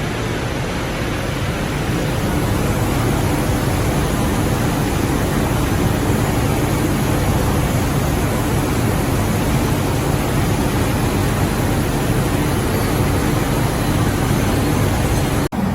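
Dog-treat production line machinery running: a loud, steady noise with a low hum underneath. It drops out for a moment near the end.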